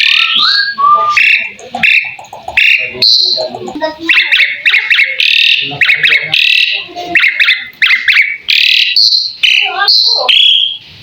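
Javan pied starling (jalak suren) singing a fast, varied medley of high whistles, chirps and rattling trills with only brief pauses.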